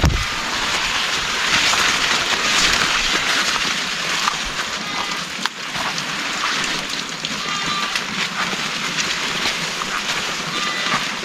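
Heavy rain pouring down steadily as a dense, even hiss, with a few faint short high tones now and then.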